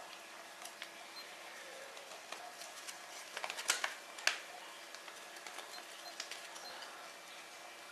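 Paper instruction leaflets being handled and unfolded: faint rustling with scattered crisp crinkles, a few sharper ones about three and a half to four and a half seconds in.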